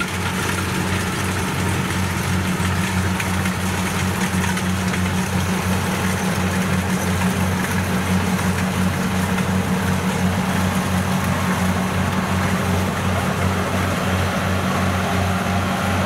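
Kubota DC70 Plus combine harvester running: its diesel engine hums steadily and smoothly with an even pulse, under the continuous whirring rush of the threshing and cutting machinery.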